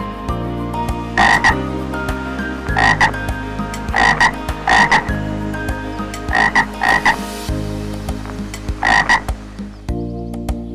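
Short animal calls, about eight in all, some coming in close pairs, over soft background music.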